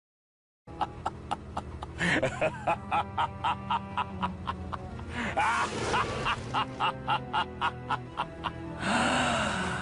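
A short music clip with a steady beat of about three hits a second and brief gliding squeaky sounds over it, ending in a short noisy burst.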